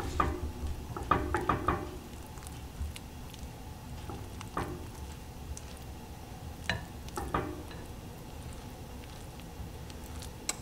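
Silicone spatula spreading and pressing a crumbly topping in a ceramic baking dish: soft scrapes and light taps against the dish, several close together in the first couple of seconds, then a few single taps spaced out later.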